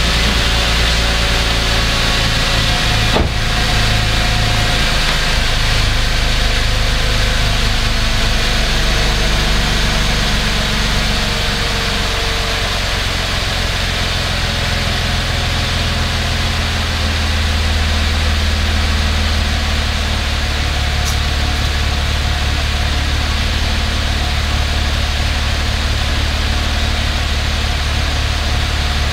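2012 Cadillac SRX's 3.6-litre V6 idling steadily through its stock exhaust, heard at the twin tailpipes: mostly a low engine hum with little exhaust note. One sharp click comes about three seconds in.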